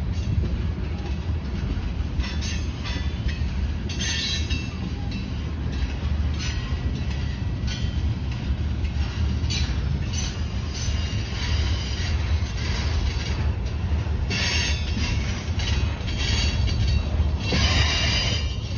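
Freight train of tank cars rolling past: a steady low rumble of wheels on rail, with high-pitched wheel squeals coming and going.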